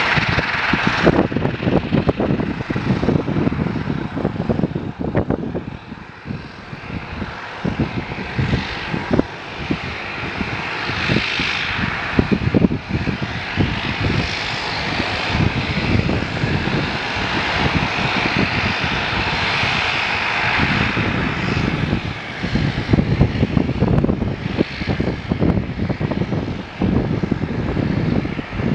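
Boeing 737-800 jet airliner landing and rolling out, a continuous jet engine roar that swells for several seconds around the middle. Gusty low rumbling from wind on the microphone runs under it.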